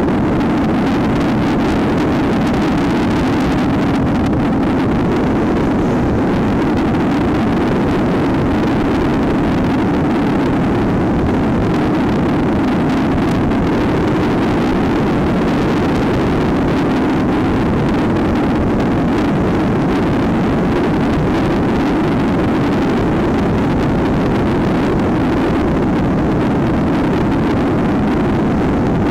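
Trail motorcycle engine running steadily at cruising speed, heard up close from the bike itself, mixed with wind rushing over the microphone.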